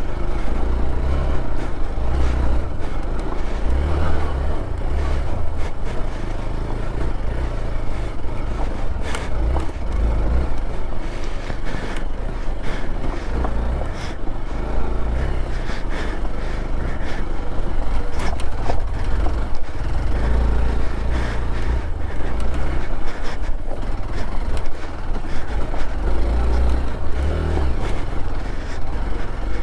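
Vehicle running over a rough off-road track: a steady, uneven low rumble with wind buffeting the microphone and scattered knocks and scrapes.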